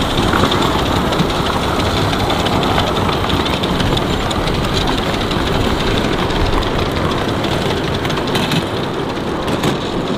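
10¼-inch gauge miniature train passing close by: the small locomotive working and the carriage wheels running over the track, a steady sound that thins out a little near the end as the train moves away.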